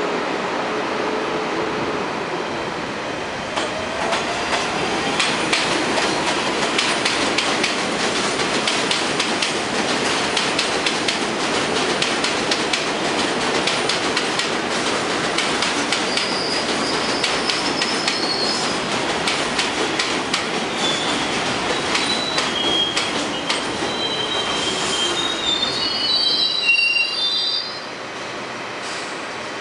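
R62 subway train pulling into an elevated station: steady running noise with rapid clicking of wheels over rail joints and a motor whine that rises and later falls, high-pitched wheel squeals mostly in the last few seconds. The noise drops off abruptly near the end as the train comes to a stop.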